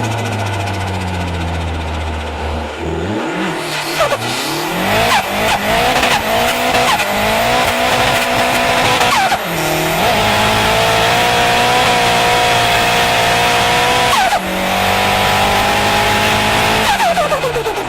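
Turbocharged Nissan Skyline R32 engine revving up and holding high revs, with turbo flutter each time the throttle lifts and the revs fall away, several times over.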